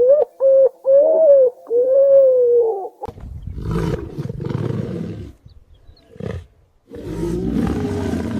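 A cat meowing several times in quick short calls, then two long, rough, noisy calls from a larger animal, with a short call between them.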